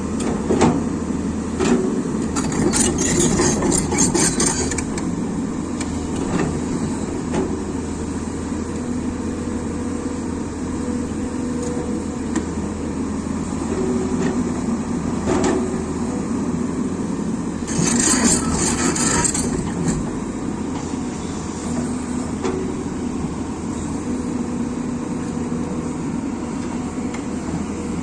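Excavator engine running steadily, its pitch shifting a little as it works, with two spells of hissing, one a few seconds in and one about two thirds of the way through.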